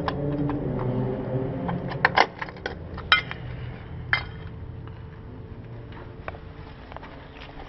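Metal tools or parts clinking: a handful of sharp, ringing clinks between about two and four seconds in, over a low rumble that fades during the first two seconds.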